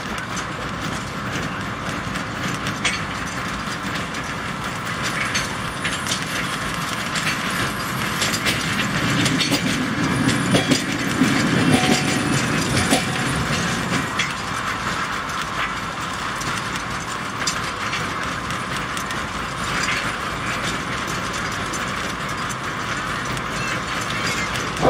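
Narrow-gauge field railway train running, heard from aboard a passenger coach: a steady rattle of the wagons with many quick clicks from the wheels and running gear, a little louder around the middle.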